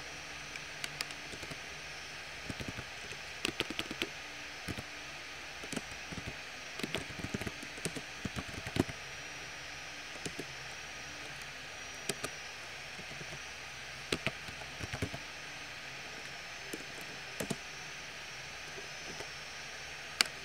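Computer keyboard keys clicking in irregular bursts of keystrokes as short lines of text are typed, over a steady hiss.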